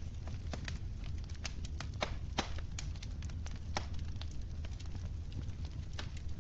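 Wood fire crackling: irregular sharp pops and snaps over a steady low rumble of the burning logs, with a louder pop about two and a half seconds in.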